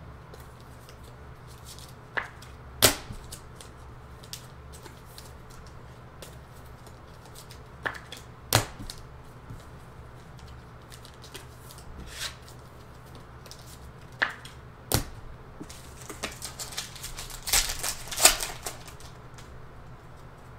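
Trading cards being handled at a table: scattered light clicks, with three sharp taps spread through, then a burst of quick crackling clicks near the end.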